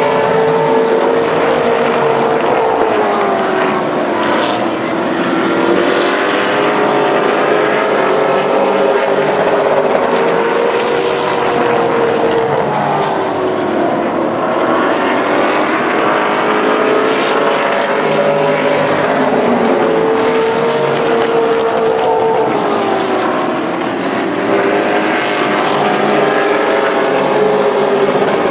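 Pro Late Model stock cars racing on a paved short-track oval, their engines running loud at high revs. The engine pitch falls and climbs again every several seconds as the cars lift through the turns and accelerate down the straights.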